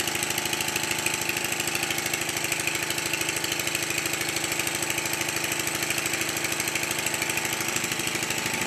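Stuart Triple model triple-expansion engine running on compressed air, a fast, steady, even beat of exhaust and moving parts. It is a new assembly in its running-in period.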